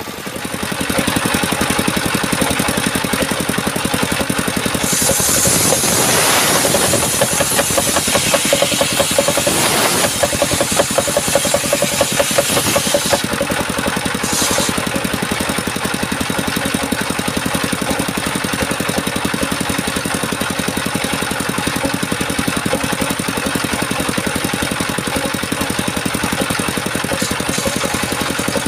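Small petrol engine, likely a chainsaw's, running steadily with a fast, even pulse, with a louder, hissier stretch from about five to thirteen seconds in.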